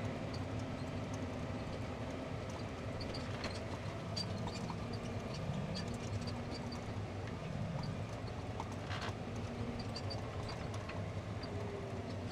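Tractor engine running steadily under a light load, heard from inside the cab, with small rattles and ticks from the cab and towed grain cart. A single sharper knock comes about nine seconds in.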